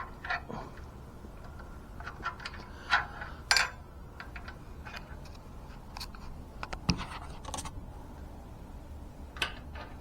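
Small metal clicks, knocks and scrapes as off-road floor jack parts are handled and a piece is pushed into place, with a few sharper knocks about three seconds in, half a second later, and near seven seconds.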